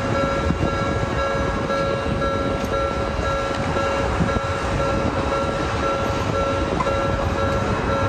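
A Toden Arakawa Line tram running past a level crossing: a steady rumble, with steady high tones held above it.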